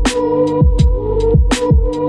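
Background music with a steady beat: deep bass-drum hits that fall in pitch, sharp snare hits about every second and a half with lighter hits in between, over a held chord.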